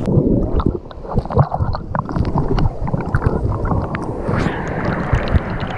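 Stream water sloshing and gurgling right at the microphone, with many small splashes and bubbling as water washes over a camera held at the surface.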